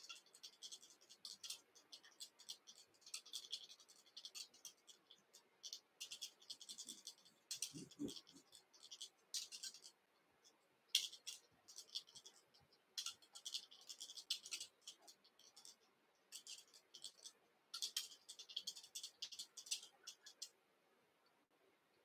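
Faint, irregular scratchy rustling of silk thread being wrapped by hand around a salmon-fly hook held in a fly-tying vise. A soft low bump comes about eight seconds in.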